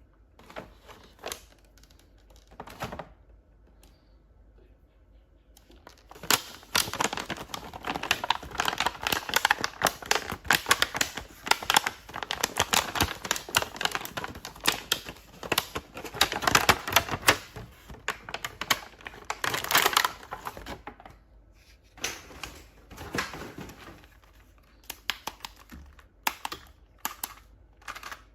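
Toy packaging being handled and opened: rapid crackling and clicking of plastic and cardboard, a few scattered clicks at first, then a dense run lasting about fifteen seconds, thinning out again near the end.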